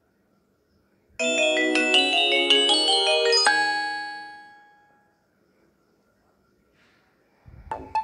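A short Nokia 3220 ringtone: a quick run of bright chime-like notes, several at once, starting about a second in and ending on a held note that fades out. The next tone begins near the end.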